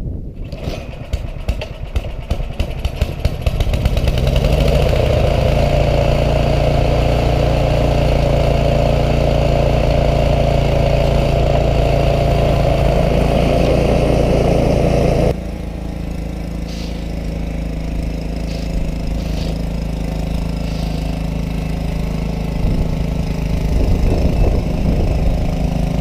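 Snowblower engine running steadily; about three seconds in its pitch rises and it grows louder. About fifteen seconds in the sound abruptly drops in level and changes, then runs on.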